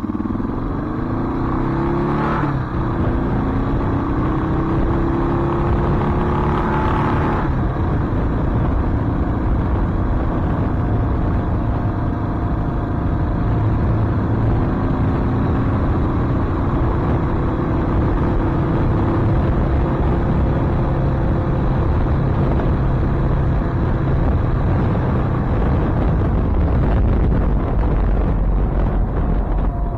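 1993 Suzuki DR650's single-cylinder four-stroke engine accelerating through the gears: its pitch climbs, drops at an upshift about two and a half seconds in, climbs again and drops at a second upshift about seven seconds in. After that it runs steadily at cruising speed.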